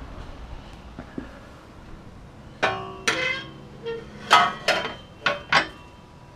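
Steel exhaust midpipes knocking against each other as they are set down, about half a dozen clanks in three seconds, each ringing on briefly like struck tubing.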